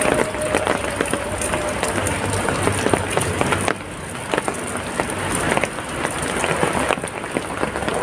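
Heavy rain falling steadily, with many sharp drips and splashes on surfaces.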